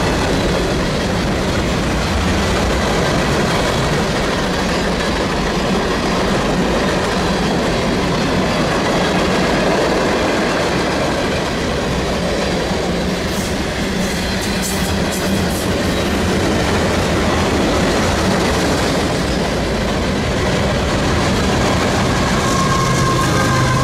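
CSX freight train's cars rolling past: a steady rumble and clatter of wheels and cars, with a few brief high squeaks about two-thirds of the way through. Near the end a mid-train locomotive comes by, adding the steady hum of its engine.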